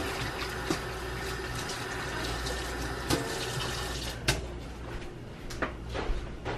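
Water running steadily from a kitchen tap, with a few light clinks, easing off about four seconds in.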